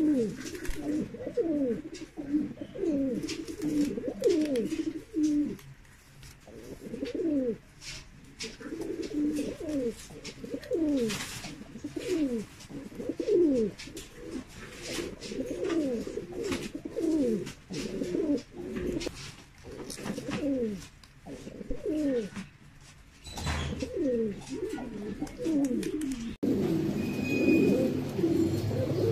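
Mukhi fancy pigeons cooing: a steady string of low coos, each falling in pitch, with short breaks about six and twenty-three seconds in. Near the end the cooing turns denser and overlapping, from several birds at once.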